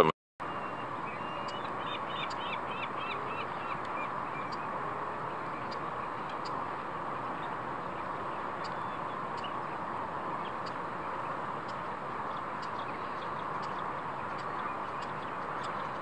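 A flock of American avocets and dowitchers calling over a steady background hiss. A quick run of higher chirps comes about two seconds in, and faint high call notes are scattered through.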